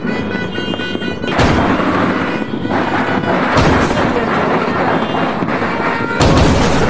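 Fireworks going off: continuous crackling and popping, with three loud booms about one and a half, three and a half and six seconds in.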